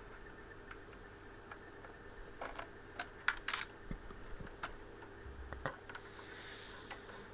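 Scattered sharp clicks and taps, irregular and in small clusters, over a faint steady electrical hum.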